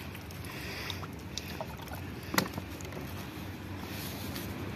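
Bare hands kneading wet flour bait dough on concrete, giving soft squishes and faint clicks with one sharp click about two and a half seconds in, over a steady low background rumble.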